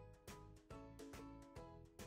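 Quiet background music with a steady beat of plucked or struck notes.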